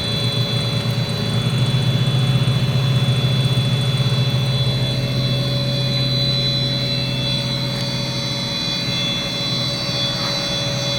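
Plastic recycling extruder (55 mm screw, 20 hp electric motor) running steadily: a constant low hum with a steady high whine above it.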